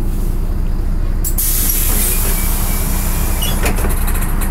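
Inside a LiAZ 6213.22 city bus: the diesel engine runs with a steady low hum. About a second in, a loud pneumatic air hiss starts and lasts about three seconds, and a quick run of clicks and clunks follows near the end.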